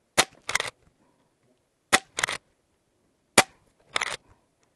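Umarex Zelos .22 PCP air rifle firing three pellets in quick succession, about a second and a half apart. Each sharp shot is followed about half a second later by a second, rattlier burst.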